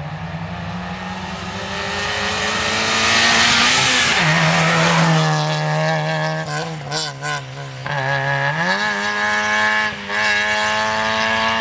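Fiat Seicento rally car's engine running hard at high revs as it approaches, passes close by and drives off at speed. Its note drops sharply about four seconds in, wavers and briefly dips a few seconds later, then climbs again and holds high near the end.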